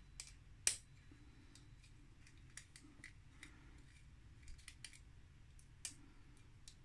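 Faint, scattered metallic clicks and ticks of a small hex key working the screws that hold the stock blower fan on a Creality Ender 3's hotend, with a sharper click under a second in and another near the end.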